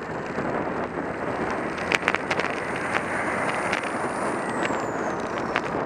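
Cement truck passing close beside a moving bicycle: a steady rumble of engine and tyres mixed with wind noise on the microphone. A faint high whine falls in pitch as the truck goes by, about four seconds in, and a few sharp clicks sound near the middle.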